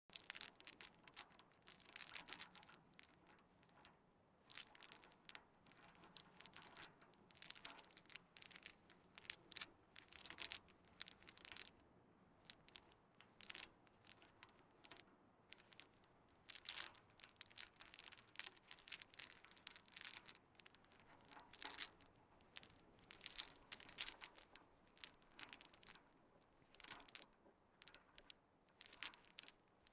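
A medium-sized metal chain handled in the hands, its links clinking and rattling against each other in irregular bursts with short pauses between.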